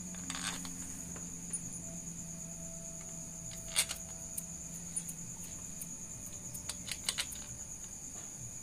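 Scattered light metallic clicks as bolts are handled and set into a motorcycle engine's clutch cover, the sharpest about four seconds in and a small cluster near the end, over a steady high-pitched trill.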